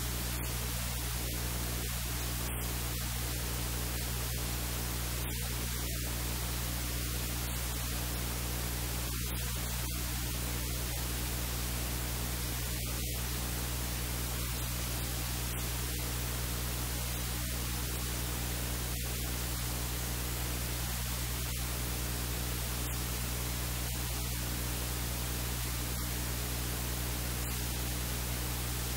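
Steady static hiss over a low electrical hum, with no other sound coming through.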